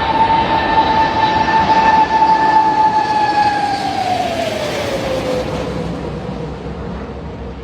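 Four-engined Airbus A380 flying low overhead: a steady jet whine over a rushing roar that drops sharply in pitch about three and a half seconds in as the aircraft passes, then fades away.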